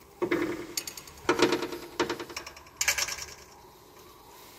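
Ratchet wrench clicking in three quick bursts of rapid ticks, about a second apart, as it is worked back and forth.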